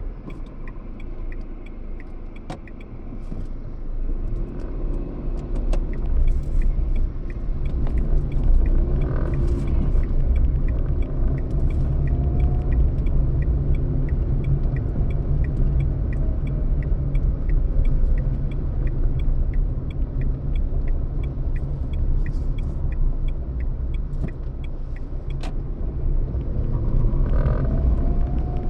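Road vehicle driving, heard as a steady low rumble of engine and road noise, with a faint regular ticking over it and a slow rise in engine pitch now and then.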